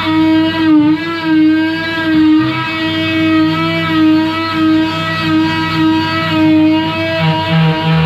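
Oscillating multi-tool cutting through a boat's fibreglass coach roof: a steady whine that wavers slightly in pitch and swells and eases about once a second as the blade is pushed along the cut.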